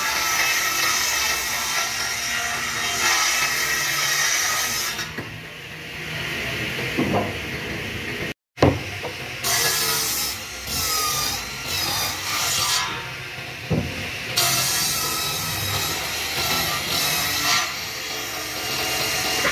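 Bench-mounted circular saw ripping thick solid-wood boards lengthwise, the blade's sound rising and falling in pitch and loudness as the wood is pushed through. A short complete break comes a little past the middle.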